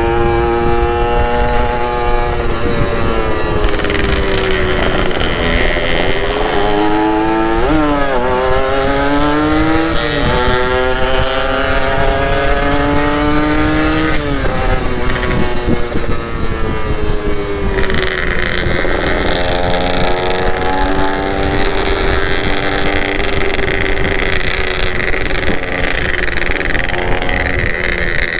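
Two-stroke motorcycle engine running under way, its pitch climbing as it revs and dropping back at each gear change, several times, over a low rumble of wind on the microphone.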